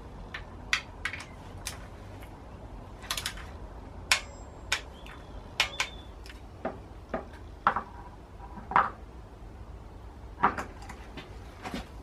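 Hand tools and metal engine parts clinking and knocking at uneven intervals while parts are fitted to the engine, a dozen or more sharp strikes, some with a brief metallic ring.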